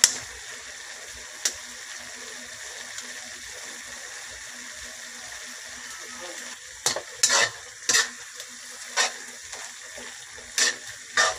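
Pancit noodles with pork and carrots sizzling steadily in a metal wok while being stirred. A spatula scrapes and knocks against the wok, with several sharp clanks in the second half.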